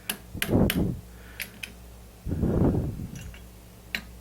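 Metal clicks and a few dull knocks from a workpiece and parallel being set and tapped down in a milling machine vise, over a steady low hum.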